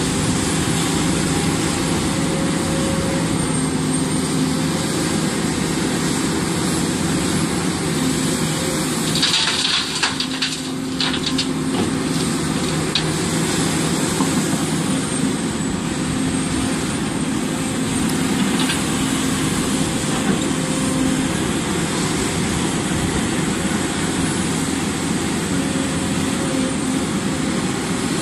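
Hidromek HMK300LC-3 crawler excavator's diesel engine running steadily, with a brief burst of knocks and rattling about nine seconds in.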